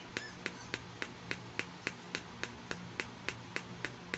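Fingernail tapping on a small plastic toy kidney dish from a miniature doctor playset, in a steady, even rhythm of about three to four crisp taps a second.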